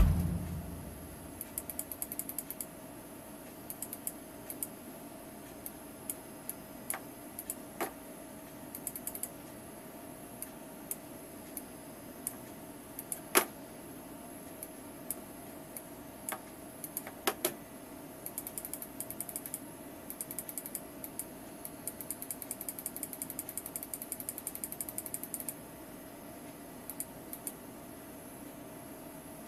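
Faint computer-mouse clicks and scroll-wheel ticking, with quick runs of light ticks in the second half and a few sharper clicks, the loudest about thirteen seconds in.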